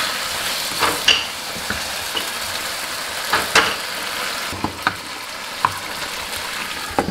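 Chicken pieces sizzling in sheep tail fat in a pan, stirred with a wooden spatula that scrapes and knocks against the pan every second or so.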